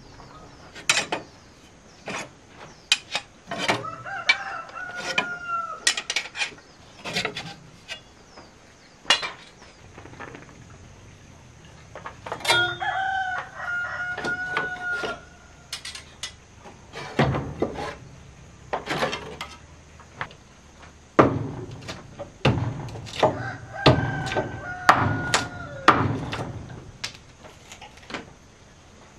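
A rooster crowing three times, each crow about two seconds long and held on a steady pitch, several seconds apart, among irregular sharp knocks of hammering on wood.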